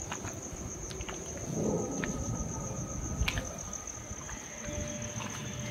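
Insects trilling in a steady, high-pitched pulsing chorus. Scattered faint clicks and a soft rustle, about one and a half seconds in, come from the phone rubbing against clothing.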